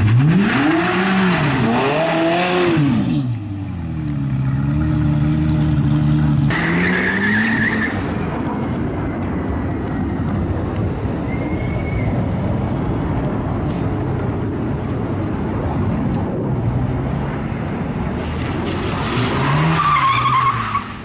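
Race car engine revved in quick rises and falls, settling to a steadier lower note. This is followed by a long harsh rushing noise with brief high tyre squeals, and more revving near the end.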